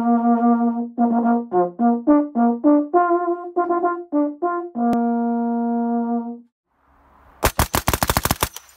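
A brass instrument plays a short call of quick notes, ending on a long held note. After a brief pause comes a short burst of fire from a Vickers machine gun.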